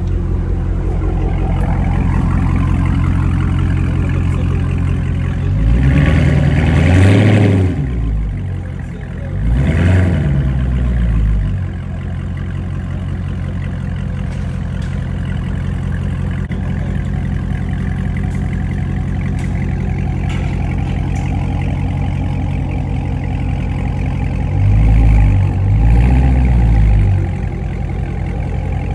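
Dodge Charger Scat Pack's 6.4-litre HEMI V8 idling, revved twice about six seconds in and twice more near the end, each rev rising and falling back to idle.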